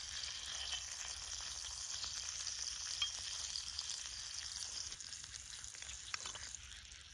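Food sizzling as it fries in a miniature pan, a steady crackling hiss with small pops that eases off in the last couple of seconds, with a few light clicks near the end.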